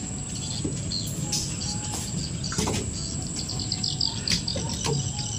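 Insects droning in a steady high pitch, with short bird chirps and a few faint knocks.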